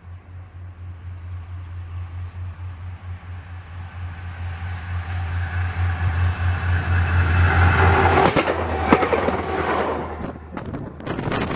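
A train approaching along the track, its running sound growing steadily louder, then passing close by with sharp clacks of wheels on the rails from about eight seconds in.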